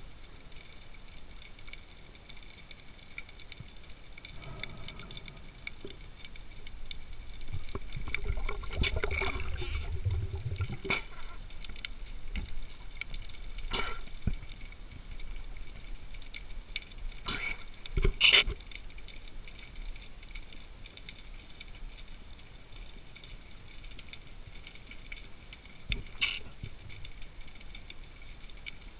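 Underwater sound picked up by a diving camera: a steady faint crackle and hiss, a low gurgle of moving water or bubbles for a few seconds about a third of the way in, and a handful of sharp clicks and knocks, the loudest about two thirds of the way through.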